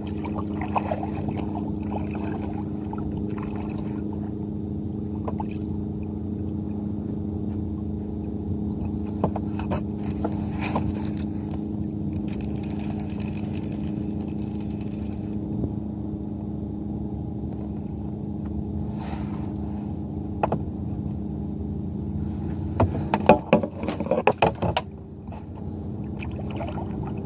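Steady low engine hum that holds one even pitch throughout, with a few scattered knocks and a short burst of clattering knocks near the end.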